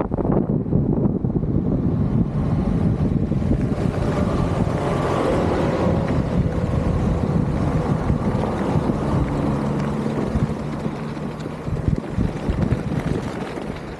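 Wind buffeting the microphone over the road rumble of an electric skateboard in motion, with faint steady whines coming in around the middle. It eases off a little near the end.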